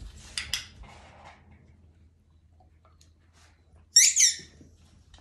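A dog-training clicker snapping twice in quick succession about four seconds in, a sharp, ringing double click, marking the dog's behaviour during trick practice. Light taps of the dog's claws on the wooden floor come in the first second.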